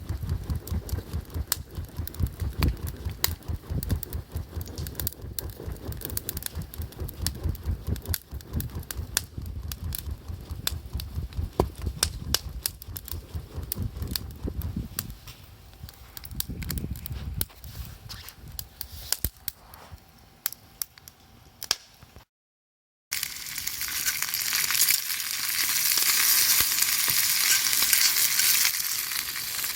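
A campfire crackling with many sharp pops and clicks over a low rumble. After a sudden cut, food sizzles loudly as it fries over the fire.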